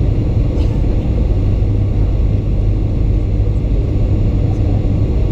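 Steady low rumble of a Boeing 737-900's passenger cabin in flight on approach: jet engine and airflow noise heard from a window seat.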